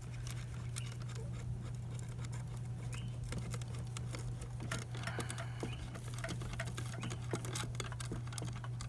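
Irregular small clicks, taps and rustles of tail-light kit parts being moved and handled, over a steady low hum.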